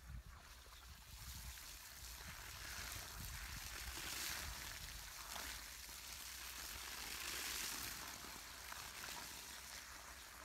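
Water gushing from a garden hose onto ploughed soil: a faint, steady splashing hiss that swells and eases a couple of times.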